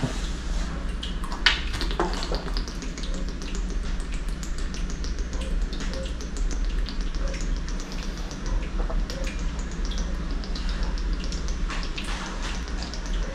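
A person gulping down water, swallow after swallow, heard as a run of small wet clicks over a steady low hum.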